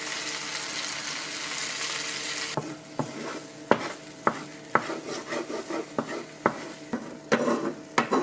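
Cherry tomatoes sizzling in a hot frying pan, a steady hiss that eases off about two and a half seconds in. Then a utensil taps and scrapes against the pan as they are stirred, a sharp clack about every half second over the sizzle.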